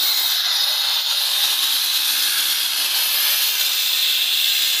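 Handheld angle grinder cutting into a concrete floor, a steady grinding noise that does not let up.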